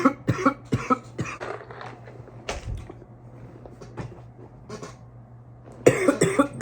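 A man coughing hard after a long hit from a cannabis vape cartridge: a run of rapid coughs in the first second and a half, a few small throat sounds, then another loud fit of coughing near the end.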